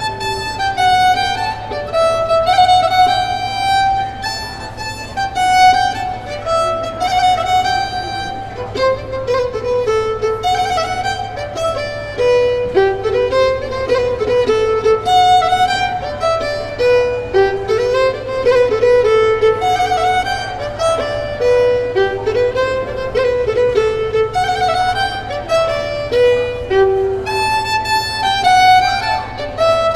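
Classical violin music: a violin plays a lively melody of many short notes. A steady low hum sits underneath.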